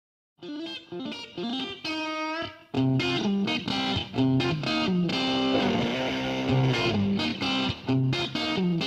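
Background music led by electric guitar. It starts with single picked notes, and a fuller, distorted guitar part with a bass line comes in about three seconds in.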